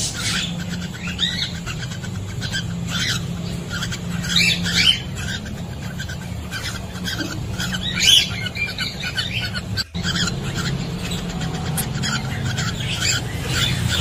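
Cockatiels chirping and calling again and again in short rising notes, over a steady low hum.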